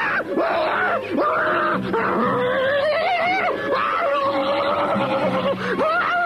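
A man's strained groaning, grunting and yelling, with one long wavering cry through the middle and noisy scuffling bursts between.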